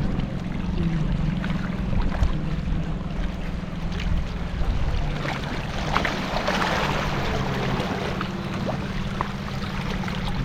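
Small motorboat engine running steadily, with wind and water noise over it and a louder rush of hiss about six seconds in.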